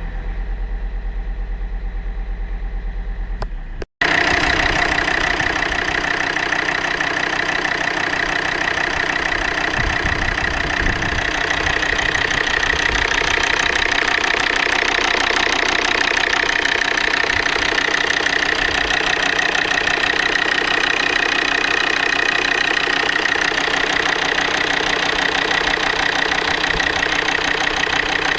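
Volvo D5 five-cylinder turbodiesel idling cold with a knock that no service has been able to identify. It is fainter for the first few seconds, then after a brief break about four seconds in it runs louder and steady with a fast, even clatter.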